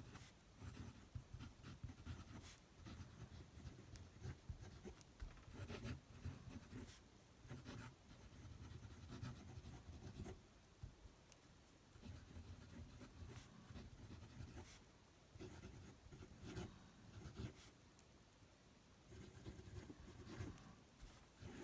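Faint scratching of a fountain pen nib writing on thin Tomoe River paper, in short runs of strokes with pauses between them.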